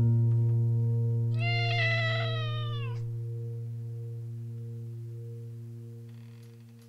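A cat meowing once, a drawn-out meow of about a second and a half that drops in pitch as it ends. Under it a held musical note rings and slowly fades away.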